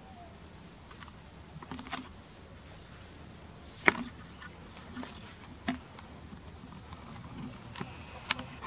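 Forest background with four or five sharp, short clicks or snaps, the loudest about four seconds in.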